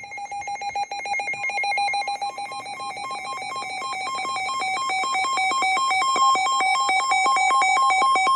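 Emergency Alert System two-tone attention signal. A steady alarm tone is joined by a second, slightly higher tone about a second and a half in, and the sound pulses rapidly and grows louder. It announces a flash flood warning about to be read out.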